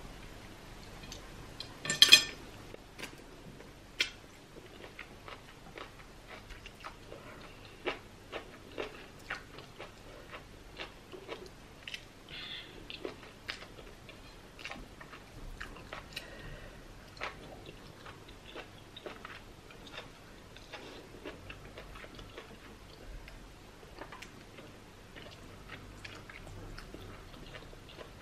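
Close-miked eating sounds: chewing of pounded yam and okra soup, with small, irregular wet clicks and squelches as fingers scoop in the soup bowl. A loud, sharp knock sounds about two seconds in, and a smaller one about two seconds later.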